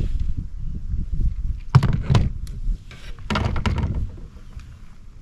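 Hollow knocks and thumps on a plastic kayak as a just-landed bass and gear are handled aboard, over low rumbling. There are two sharp knocks about two seconds in, then a short clatter of knocks a second or so later.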